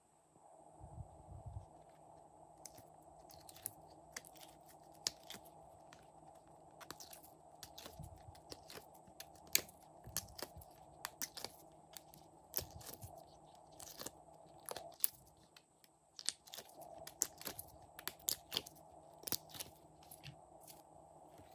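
Sticky crackles and irregular sharp pops as fingers press blue slime out of a silicone butterfly mold, then squeeze and pull glossy slime, over a faint steady hum. The clicks come thickest around the middle and again near the end.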